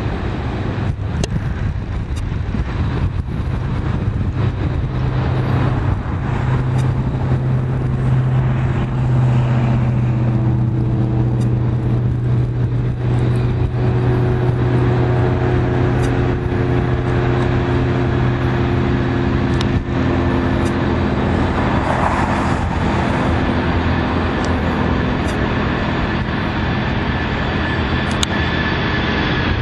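Boeing 747-400's four GE CF6-80C2B1F turbofan engines at approach power: a steady, loud jet rumble with several droning hums, growing a little louder over the first several seconds as the airliner comes in low on final approach.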